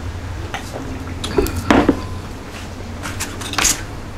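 Close-up eating and drinking sounds: swallows from a glass of drink, then chewing and short wet mouth noises, a few separate ones, the strongest about a second and a half in. A steady low hum runs underneath.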